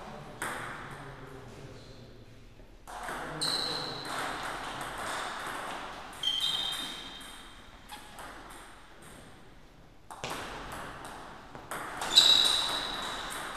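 Table tennis rally: the ball clicking off bats and the table in quick exchanges, with a few short high-pitched rings. The loudest hit comes about twelve seconds in.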